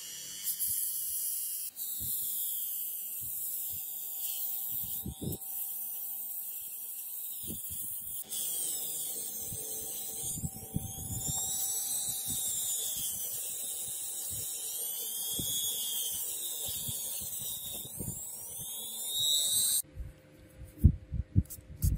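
Handheld rotary tool with an abrasive wheel running against a rusty steel cleaver blade, grinding off the rust. It makes a steady high whine whose pitch rises and falls repeatedly. The tool stops about two seconds before the end, followed by a few short knocks.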